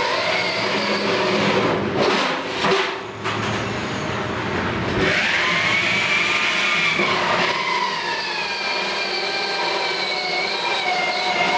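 CNC router running, its motors giving a whine of several tones that slide up and down in pitch as the machine moves, with a sharp rise in pitch about five seconds in.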